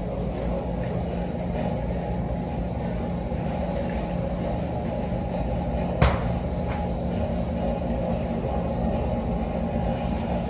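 Steady low hum and rumble of a large store's background noise, with one sharp knock about six seconds in.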